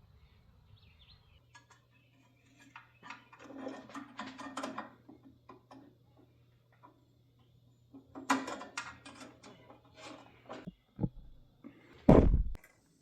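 Two bursts of clattering and knocking, as of parts or tools being handled, over a faint steady low hum, then a heavy thump about twelve seconds in.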